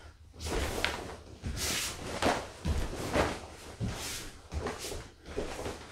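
Quick punches and kicks in a karate gi: a run of short fabric swishes and snaps, with soft thumps of bare feet stepping on a wooden parquet floor, about one or two every second.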